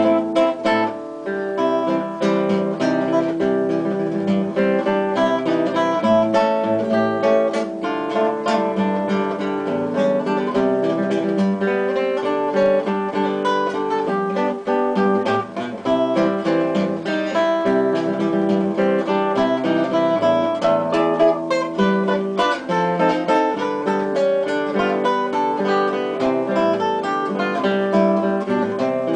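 Acoustic guitar music: plucked and strummed notes with a steady rhythm.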